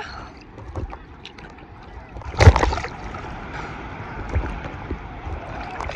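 Sea water washing and sloshing around a person standing neck-deep in the surf, with one loud splash about two and a half seconds in and a steady wash of water noise after it.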